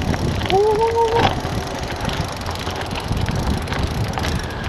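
Mountain bike rolling fast over a dirt and gravel track: tyre noise, rattling from the bike and wind on the microphone. About half a second in there is a short pitched squeal or call lasting under a second.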